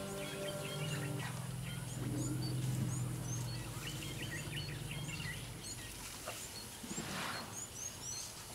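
Small wild birds chirping over and over in short, high calls. Low held notes of background music fade out about halfway through, and there is a brief soft rustle near the end.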